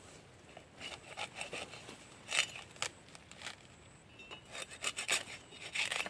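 Fibrous coconut leaf sheaths being pried open and torn back from a young palm's trunk: irregular scraping, ripping strokes in short bursts, loudest about two and a half seconds in and again near the end.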